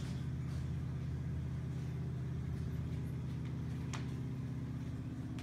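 Steady low mechanical hum, with a short click about four seconds in.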